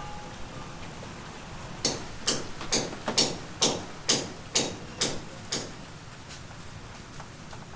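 Hammer blows: a run of about nine sharp, evenly spaced strikes, roughly two a second, stopping about five and a half seconds in.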